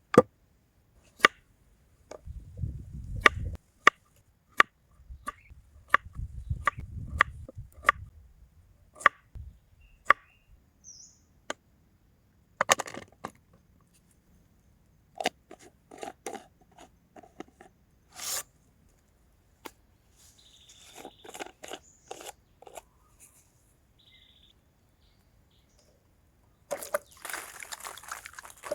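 A run of sharp, slightly ringing taps at an even pace of about one every 0.7 s, with low rubbing and handling noise between them. Later come scattered knocks and clicks, and a stretch of rustling and scraping near the end.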